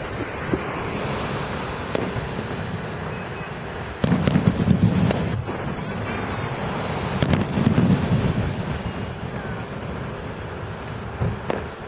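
Aerial fireworks shells bursting overhead: a string of sudden booms with rumbling echoes, the loudest about four seconds in and again around eight seconds, with sharper pops between.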